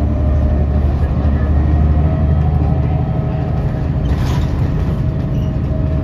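Transit bus engine and drivetrain running steadily with a low hum, heard from inside the bus, with a short hiss about four seconds in.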